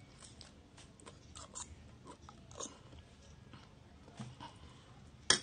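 Mouth sounds of someone eating instant noodles: soft slurps, smacks and chewing as strands are sucked in. Near the end comes one sharp, loud click, the loudest sound here.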